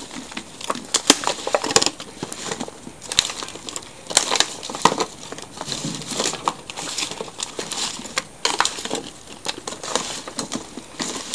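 Hands tossing chunks of raw vegetables coated in oil and paprika in a disposable aluminium foil baking pan: irregular crinkling of the thin foil, with the knocks and squelches of the pieces against each other.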